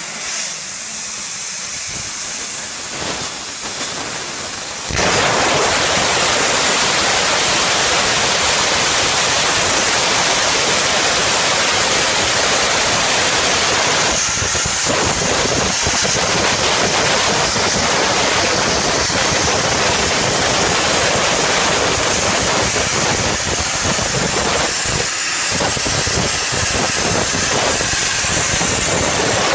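Plasma cutting torch on a portable CNC cutting machine, its arc cutting steel plate with a loud, steady hiss. A fainter hiss at first jumps suddenly to full strength about five seconds in.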